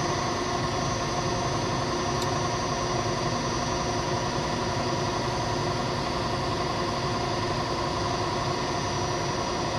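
Milling machine spindle running at a steady speed, an even motor hum with several steady whining tones, while the edge finder turns in the spindle.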